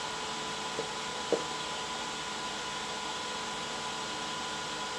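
3D printer's cooling fans running: a steady whirring hiss with a faint steady high tone, and two brief faint blips about a second in.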